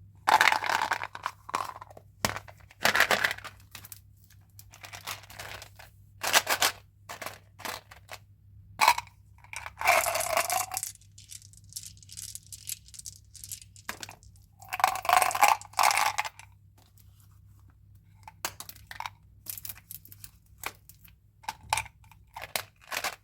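Candy packaging being handled: wrappers crinkling and tearing in irregular bursts, with short clicks and rattles in between, the longest bursts about ten seconds in and again about fifteen seconds in.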